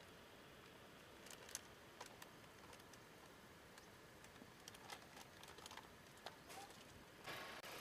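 Near silence: faint outdoor background with a few soft, scattered clicks.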